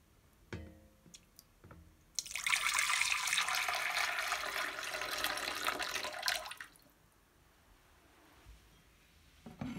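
Water spilling over the rim of a brim-full saucepan and pouring into a small ceramic bowl, a steady pour of about four seconds that starts about two seconds in: the water displaced when a pyrite rock is set into the plastic tub floating in the pan. A few light knocks come before it.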